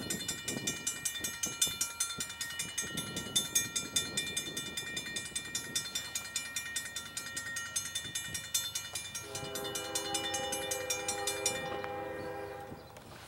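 Railroad grade crossing bells ringing in a fast, steady rhythm while the crossing gates lower, stopping shortly before the end. From about nine seconds in, an approaching locomotive's horn sounds a held chord of several notes.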